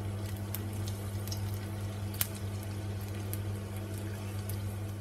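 Garlic cloves sizzling gently in hot olive oil in a frying pan, with scattered small pops and crackles over a steady low hum.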